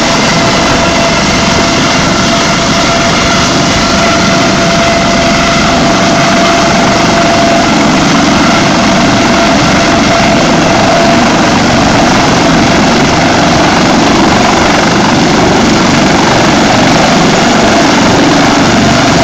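Air ambulance helicopter running on the ground with its rotor turning: a loud, steady turbine whine over the rotor noise, growing slightly louder near the end as it powers up towards lift-off.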